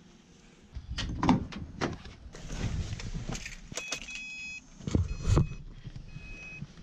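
Getting into a Subaru car: keys jangling, handling clicks and knocks, and the car's warning chime beeping on and off from about four seconds in. Near the end the driver's door is pulled shut with a loud thump.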